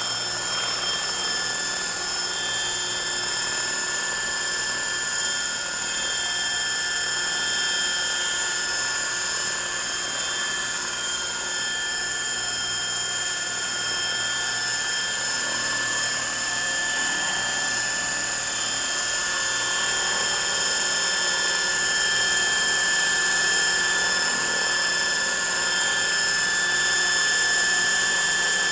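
Frenzy 600E electric RC helicopter on a 5S battery pack hovering: a steady high-pitched whine of several tones over a rushing noise, growing a little louder in the second half as it comes closer.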